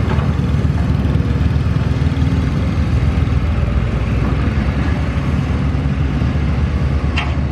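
Doosan DX55 mini excavator's diesel engine running steadily while the machine swings and works its bucket. A short high-pitched squeak comes near the end.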